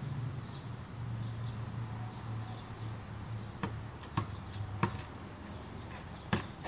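A basketball bouncing on the ground: four sharp thuds in the second half, the first three about half a second apart, over a low steady hum that fades out, and faint bird chirps.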